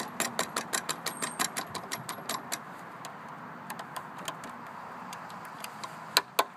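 Drill working in a deadbolt lock's cylinder with rapid, even metallic clicks about five or six a second; the clicks stop about two and a half seconds in and come back louder near the end.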